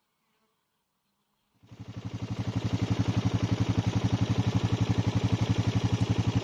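An engine starts up about a second and a half in, building quickly and then running with a steady rapid pulsing, roughly a dozen beats a second.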